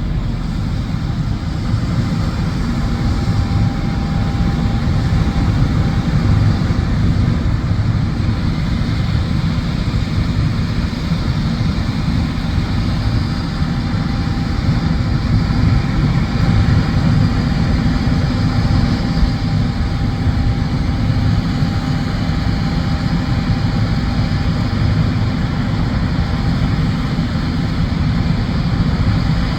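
John Deere S780 combine harvester running steadily: a loud, even low rumble with a faint whine that comes and goes.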